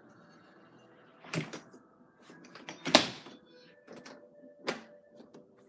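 Sliding patio door handled and rattled in its frame: a few sharp clacks and knocks, the loudest about three seconds in, with lighter clicks between.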